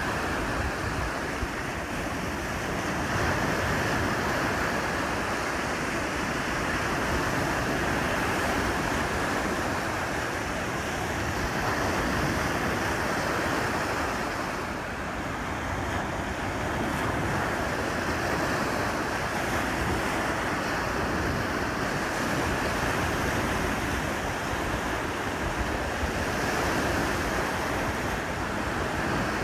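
Lake waves breaking steadily on the shore, a continuous surf wash that swells and eases slowly, with wind on the microphone adding a low rumble.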